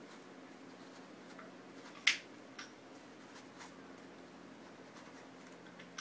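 Plastic gears of a Gear Shift twisty puzzle clicking as a side is turned by hand, a few scattered sharp clicks with one louder click about two seconds in.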